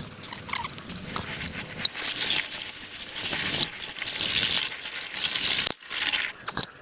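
Culvert pipe being dragged by hand over rough ground: a continuous rustling and scraping with scattered clicks, broken by a brief gap near the end.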